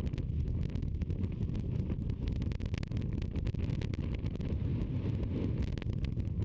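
Wind buffeting the microphone: a steady low rumble with fine crackling running through it.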